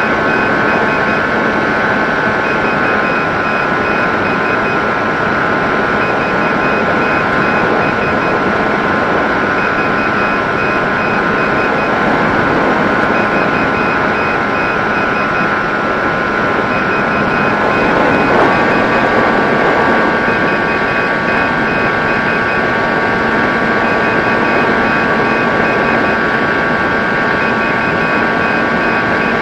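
Electric motor and propeller of a Mini Drak flying-wing RC plane in flight, a steady whine over rushing air noise. The pitch steps down slightly about three seconds in and rises again a little past halfway.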